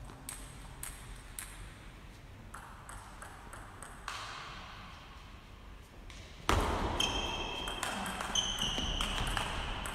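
Table tennis ball being struck by bats and bouncing on the table. First come a few scattered light taps. Then, about two-thirds of the way in, a quick rally of sharp, ringing pings starts, as the background in the hall gets louder.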